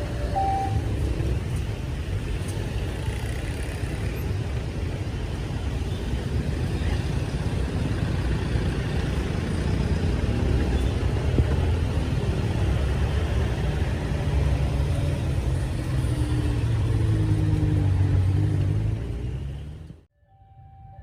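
A diesel-hauled train passing close by: a loud, continuous rumble of locomotive engine and wheels on the rails, opening with the tail of a two-tone horn blast that stops under a second in. The engine note grows stronger near the end, then the sound cuts off abruptly.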